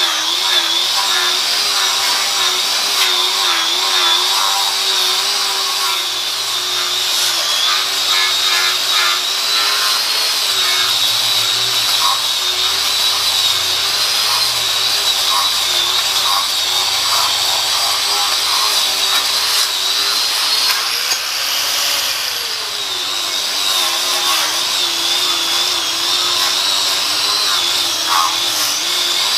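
Handheld grinder running continuously as it scrubs rust off the face of a cast iron lathe faceplate, with a scraping grind over the motor tone. The motor's pitch wavers as it is pressed into the metal and rises briefly a little past two-thirds of the way through before settling back.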